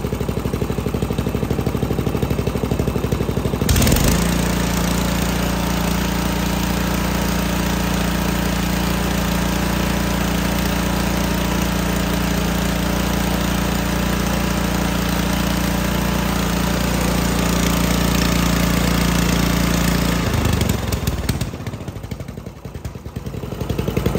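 Murray riding mower's 14.5 hp OHV engine running: it idles, the throttle opens about four seconds in, and it holds a steady higher speed before throttling back down about 20 seconds in. It dips quieter briefly and then runs again near the end. It is an engine over 20 years old that the owner says does not knock.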